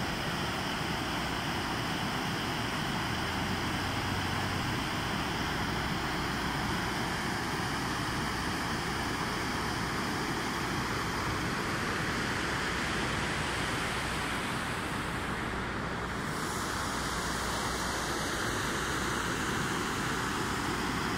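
Water of a large circular fountain falling as a curtain from its raised rim into the basin: a steady, even rush of splashing water that dulls briefly about three-quarters of the way through.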